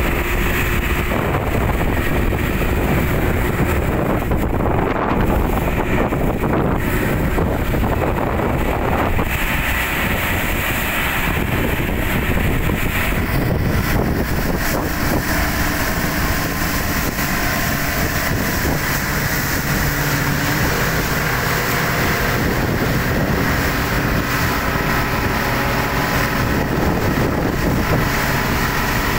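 Twin 85 hp outboard motors running steadily with the boat under way at speed, with wind buffeting the microphone and water rushing in the wake.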